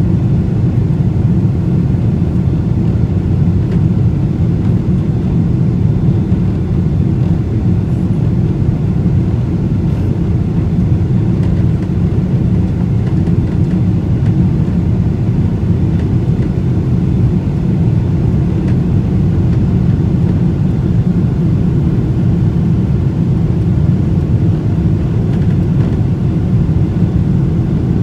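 Steady low drone of a Boeing 777-200ER's engines and rushing air, heard inside the passenger cabin during the climb.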